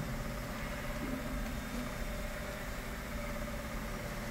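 Bongo wrecker tow truck's engine idling, a steady low rumble heard inside the cab.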